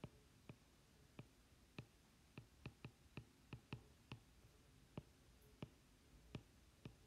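Faint, irregular clicks of a stylus tip tapping a tablet screen during handwriting, about two a second.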